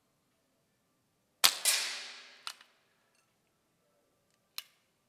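A single shot from a BSA R10 Gold Star SE .177 pre-charged pneumatic air rifle: a sharp crack about one and a half seconds in, a second crack a moment later, and a tail that dies away over about a second. A sharp click follows near the end.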